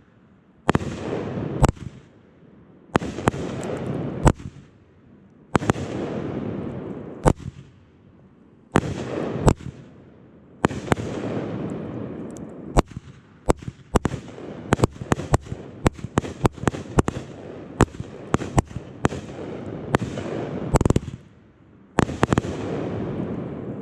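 A 500-gram consumer firework cake firing shot after shot, each sharp report followed by a second or two of noisy rush. The shots come every two to three seconds at first, then as a quicker, denser run of reports from about halfway on.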